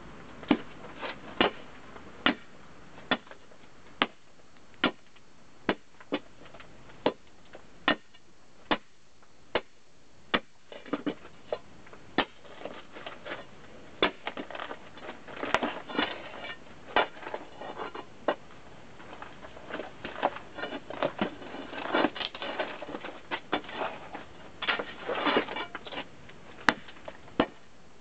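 A long-handled tool striking rock over and over, sharp hits about once a second at first. From about ten seconds in, the hits come with scraping and clattering of loose broken stone.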